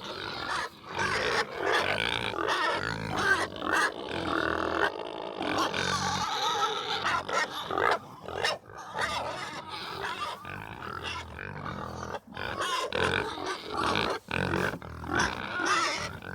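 Animal calls, harsh and near-continuous, broken by short pauses.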